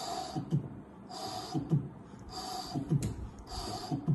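Mitral regurgitation heart sounds imitated with the mouth: a soft breathy whoosh stands for the pansystolic murmur, each followed by two low thuds for the second and third heart sounds. The cycle repeats four times, about once a second.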